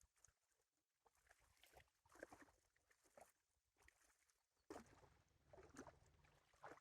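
Faint, intermittent small splashes and lapping of lake water from someone swimming, with a low wind rumble on the microphone in the second half.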